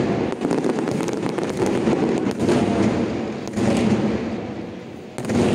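Aerial firework shells bursting in a dense, continuous barrage of bangs. The barrage eases off about four seconds in, then another loud round of bursts starts near the end.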